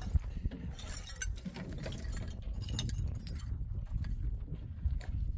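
A run of light clinks and clicks, thickest in the first second and again about three seconds in, over a low rumble.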